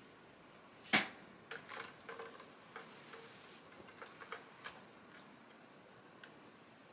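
Faint clicks and light knocks as a small iron is pushed and lifted over pieced cotton quilt fabric on a wool pressing mat. There is one sharper knock about a second in, then a scatter of smaller taps.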